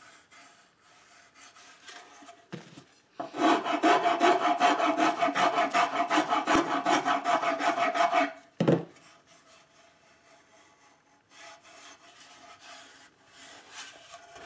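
Wood rasp shaping a mahogany ukulele neck: a run of quick back-and-forth strokes lasting about five seconds in the middle, with a single stroke before and after it and a few faint strokes near the end.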